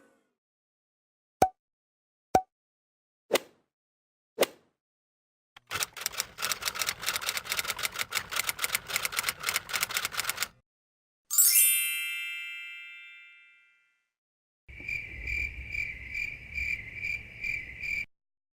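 A run of cartoon comedy sound effects: four sharp pops about a second apart, then a rapid rattling patter, then a bright ringing ding that fades away, and finally a high beeping tone pulsing about twice a second.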